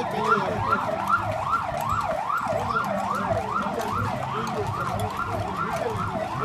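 Emergency vehicle's electronic siren in a fast yelp, its pitch sweeping up and down nearly three times a second.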